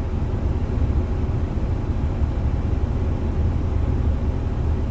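Steady low drone of a heavy diesel truck's engine and road noise heard from inside the cab.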